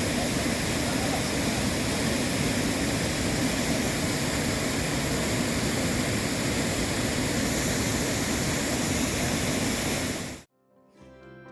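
Waterfall rushing: a steady, even wash of falling water that cuts off suddenly about ten and a half seconds in, after which soft plucked-string music begins.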